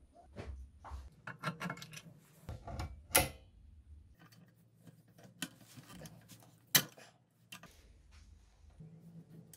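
Clicks and knocks of plastic and metal bicycle frame parts being handled and fitted, including the seat-post clamp's quick-release lever being worked. Two sharp, louder clicks stand out, about three seconds in and again near seven seconds.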